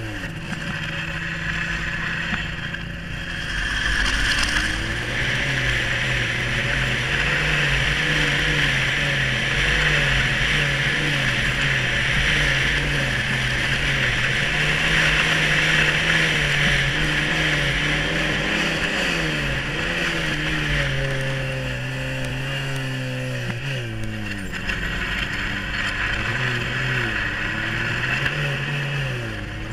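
1996 Yamaha Phazer snowmobile's two-stroke twin engine running at speed, over a steady rush of noise from the sled moving across the ice. The engine note eases off twice in the last third and picks up again.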